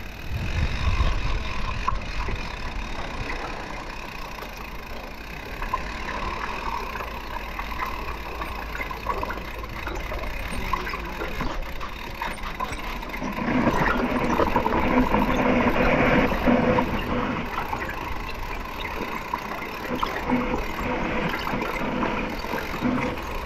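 YT Jeffsy mountain bike rolling slowly down a rough rock slab: tyres grinding over the granite with the brakes held on, and a louder stretch about halfway through.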